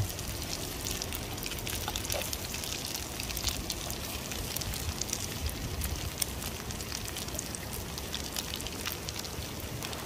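Oil sizzling and crackling in a frying pan as small whole fish fry: a dense, steady patter of fine pops over a low rumble.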